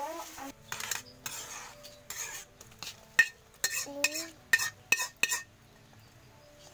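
A metal ladle scraping and stirring in a metal pan, then a quick run of sharp ringing clinks as the ladle strikes the rim of the pan and pot while the sautéed mixture is scraped into the mung bean soup.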